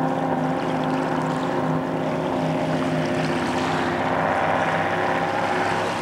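Racing motorboat running at speed across the lake, its engine giving a steady, even note.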